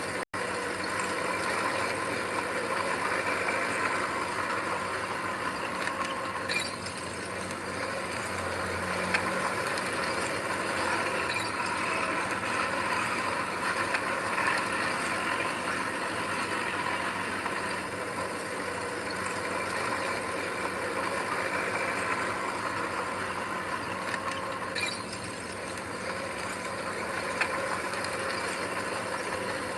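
Heavy earthmoving machinery at work: a diesel engine running steadily under a continuous metallic clatter of moving parts.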